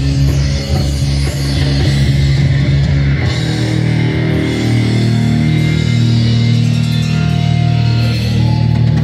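Live rock band playing loud, heavy rock with electric guitar; the bass line shifts to a new pattern about three seconds in.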